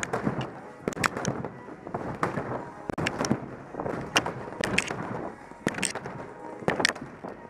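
A person tumbling on a gym tumble track: irregular sharp thumps and knocks of hands and feet landing on the mat, about a dozen, often in quick pairs, over a rustling of motion.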